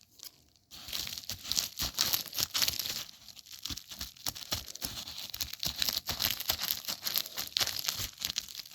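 Packaging being torn open and crinkled by hand: a dense crackling and rustling that starts just under a second in.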